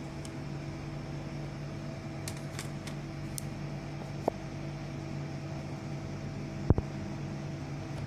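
Cooling fans of a running Dell Optiplex 980 desktop with its case open, humming steadily. A few light clicks of handling come about two to three seconds in, and one dull thump comes near the end.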